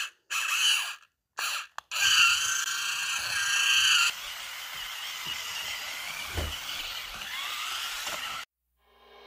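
Electric drive motors and gearboxes of a toy remote-control twisting stunt car whining, the pitch rising and falling as the car speeds up and slows. The sound breaks off briefly twice about a second in and stops shortly before the end.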